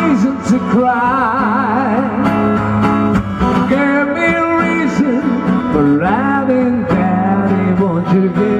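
A man singing a ballad live to acoustic guitar, his held notes wavering with vibrato.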